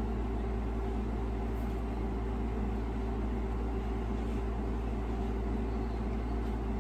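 Steady low machine hum with a faint fast pulsing, unchanging throughout.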